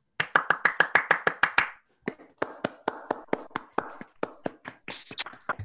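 Hand clapping heard over a video call: a fast, even run of claps for about a second and a half, then after a short gap a slower, softer run of claps.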